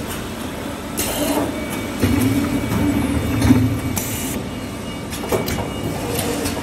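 Automatic tube bending machine running a bend cycle: its motor drive hums for about two seconds in the middle as the bending head works the tubes, with short hisses of air from the pneumatic cylinders near the start and just after the hum, and a few sharp clicks.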